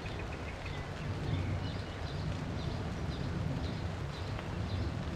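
Steady rain falling on a river, with a low steady rumble underneath and scattered faint high bird chirps.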